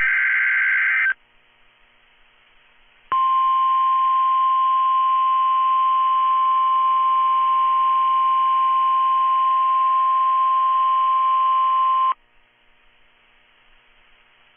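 The tail of a SAME digital data burst ends about a second in. After two seconds of faint radio hiss comes the NOAA Weather Radio warning alarm: a single steady 1050 Hz tone held for about nine seconds, then cut off sharply, with faint hiss after it. Together these form the weekly test of the weather-radio alert system.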